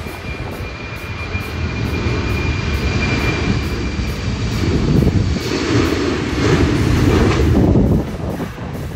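Jet airliner's engines passing close by: a steady high whine over a loud, dense rumble that builds to its loudest about five seconds in, then drops off suddenly near the end.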